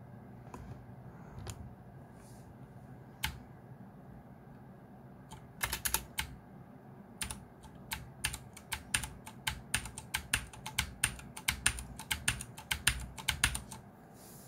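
Mechanical keyboard with clicky blue switches: a few single key presses, then from about five seconds in a fast run of typed keystrokes, several clicks a second, which stops just before the end.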